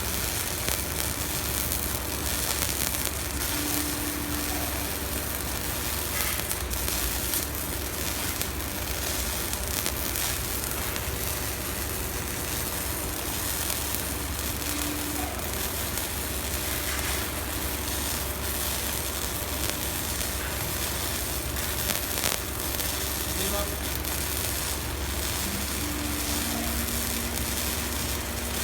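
Steady crackling and sizzling of a manual arc-welding arc burning on hot-dip galvanized steel sheet.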